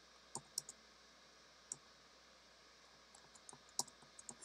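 Faint, scattered clicking at a computer: a couple of clicks about half a second in, one near the two-second mark, and a quicker run of clicks in the last second and a half, over quiet room tone.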